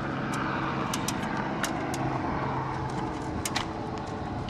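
A motor running steadily amid outdoor noise, its low hum fading about halfway through, with several sharp clicks.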